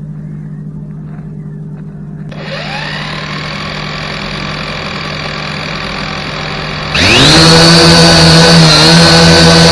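Global Drone X183 quadcopter's four motors and propellers, heard close from the drone's own camera: the motors start about two seconds in and settle into a steady idle whine, then about seven seconds in they rise sharply to a much louder, steady high whine at takeoff throttle.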